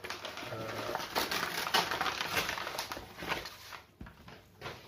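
Brown paper packaging rustling and crinkling as a cardboard box is slid out of it, a dense crackle that dies away after about three seconds, followed by a couple of light knocks near the end.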